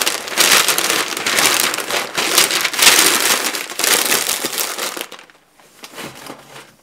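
Sheets of newsprint packing paper being crumpled and wrapped around a cup: loud crinkling and rustling in several surges, stopping about five seconds in.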